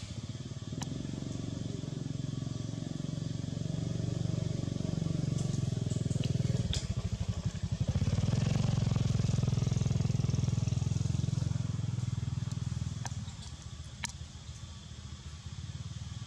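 A motor vehicle's engine running close by, a low pulsing rumble. It grows louder over the first few seconds, stays loud through the middle, then drops off about three-quarters of the way through. A few faint clicks come over it.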